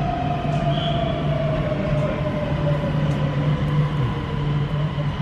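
Interior running noise of an Oresund Line electric train: a steady rail rumble and hum, with an electric whine that falls steadily in pitch.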